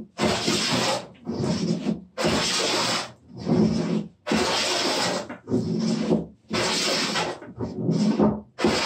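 Wooden jointer plane taking heavy cuts across a wooden workbench top to flatten it, about one stroke a second. Each stroke is a rasping, hissing cut, followed by a duller scrape as the plane comes back.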